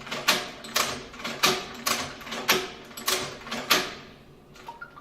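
Hand-operated leather stitching machine sewing, giving a sharp clack with each stitch at a little under two a second. It stops about four seconds in, followed by a couple of faint clicks.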